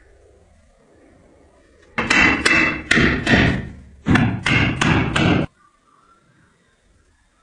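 Hammer blows, about a dozen sharp strikes in three quick runs between about two and five and a half seconds in.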